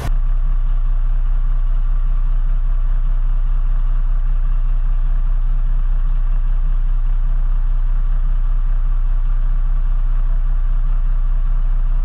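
Semi truck's diesel engine idling steadily, a constant low rumble.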